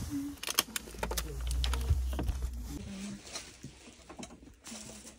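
Scattered sharp clicks and light knocks over a low rumble.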